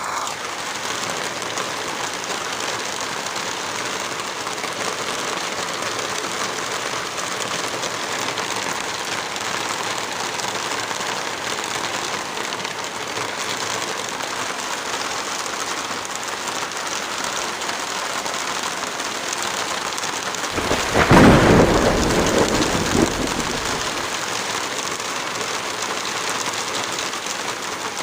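Heavy rain falling steadily in a thunderstorm, with a clap of thunder about three-quarters of the way through that rumbles and fades over a few seconds.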